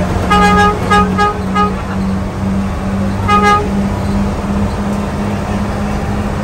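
Bus horn tooting: four quick toots, then one more about three seconds in. Under it, the bus's engine drones steadily, heard from inside the cab.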